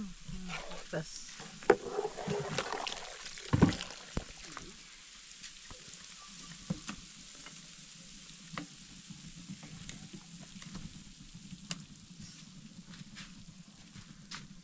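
Butter sizzling in a pot as it is cooked down into ghee, a steady sizzle with frequent crackles and pops, busiest in the first few seconds.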